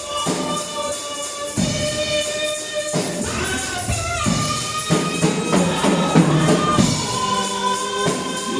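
Gospel choir singing with a tambourine shaking in rhythm, the voices holding notes that change pitch every second or so.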